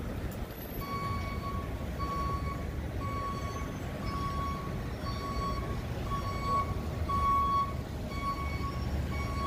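A vehicle's reversing alarm beeping about once a second, each beep a single steady high tone, starting about a second in, over a low rumble.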